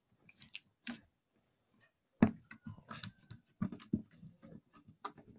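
Slime with small colourful beads mixed in being pressed and squished by hand, giving irregular small clicks and pops, the sharpest about two seconds in.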